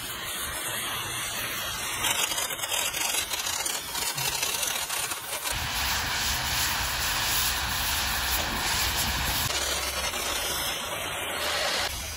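Oxy-fuel cutting torch hissing steadily as its oxygen jet cuts through the steel of an excavator track chain. The sound shifts abruptly about five and a half seconds in, when a low hum joins the hiss.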